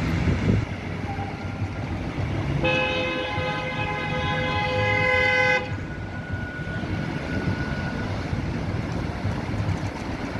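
A vehicle horn sounds once, held steady for about three seconds starting between two and three seconds in, over continuous city road traffic with engines and tyres.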